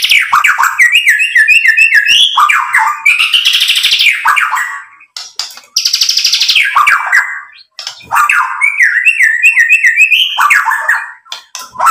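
White-rumped shama singing: loud harsh buzzy rattles alternating with runs of quick, repeated whistled notes, broken by two brief pauses.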